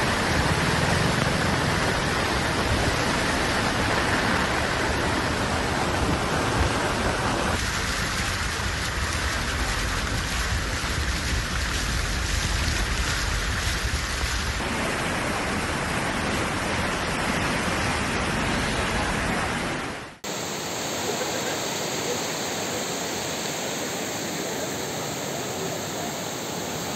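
Floodwater rushing, a steady noise of fast-flowing water. Its character shifts a few times, and it cuts out briefly about 20 seconds in before a different steady rush carries on.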